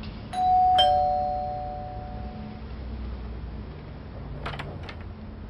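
Two-tone ding-dong doorbell chime: a higher note, then a lower one about half a second later, both ringing out and dying away over about two seconds. A few short sharp clicks follow near the end.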